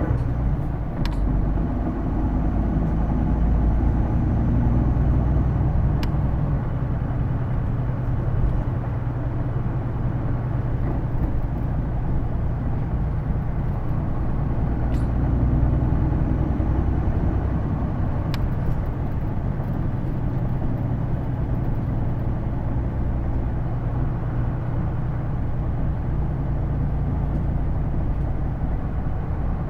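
Hino Blue Ribbon II city bus (PJ-KV234L1) heard from inside the cabin: a steady diesel engine and drivetrain rumble, with a few faint clicks.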